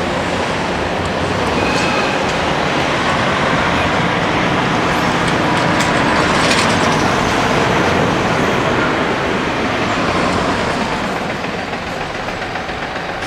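Freight train rolling over a level crossing on a freight-only siding: a loud, steady rumble of wheels on rail that eases slightly near the end.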